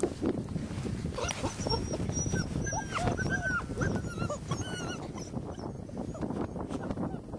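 White Swiss Shepherd puppies, six weeks old, whining and yipping in a string of short, high, rising-and-falling calls that start about a second in and stop after about five seconds.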